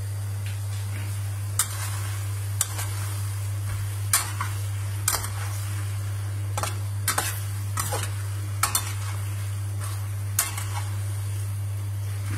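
Metal skimmer stirring rigatoni in a frying pan, clinking and scraping against the pan about ten times at irregular intervals. Underneath is the faint sizzle of the pasta simmering in its cooking water and a steady low hum.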